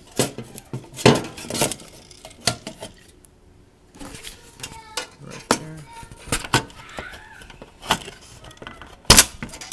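Irregular sharp clicks and clinks of an Xbox 360's fan connectors being unplugged and its parts handled, with a louder clatter near the end.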